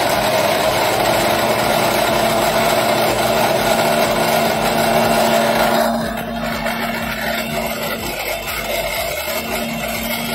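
Electric mixer grinder running with its stainless-steel jar full of raw peanuts, dried fish and spices being ground into chutney. About six seconds in, the noise drops a little and turns smoother.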